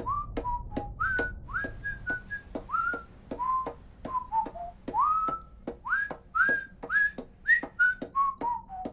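A whistled cartoon tune of short notes, about two a second, each swooping up into its pitch, with a click at the start of each note.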